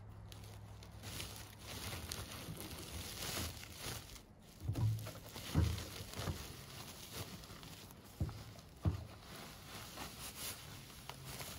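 Rustling and crinkling of a woven plastic sack of grass seed being handled and reached into, with several dull knocks in the middle.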